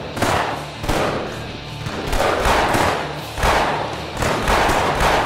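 Several pistol shots about a second apart, each followed by a long echo, with dramatic background music underneath.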